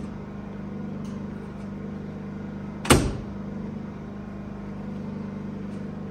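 A car's glove box door is shut once with a sharp clack about three seconds in, over a steady low electrical hum.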